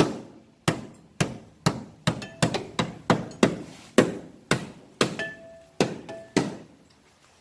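Hammer blows on the sheet-metal seams of a Fox-body Mustang's wheel well, flattening the welded lip to clearance it for wide tires. It is a steady run of sharp strikes, about two a second, some with a brief metallic ring, stopping near the end.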